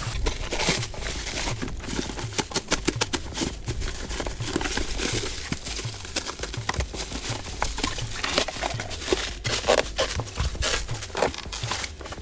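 Crinkling, rustling plastic packaging and irregular knocks from handling large plastic mixing buckets as they are unpacked.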